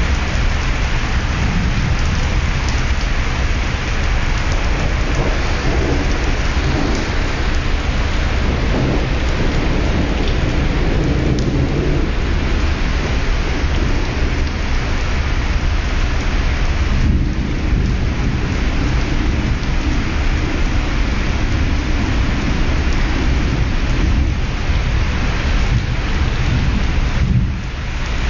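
Steady, loud rushing noise with a deep low rumble, heard through a mobile phone's microphone at the back of a ferry in a thunderstorm: wind, rain and the ship's engine and wake blend together. The level dips briefly near the end.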